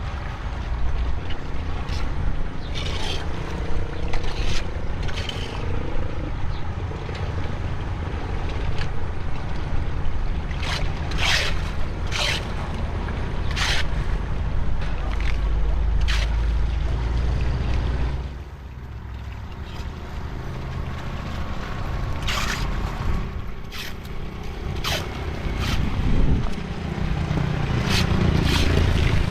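Steady low rumble with scattered short scrapes and knocks, about a dozen, some in quick pairs; the rumble drops briefly about two-thirds of the way through.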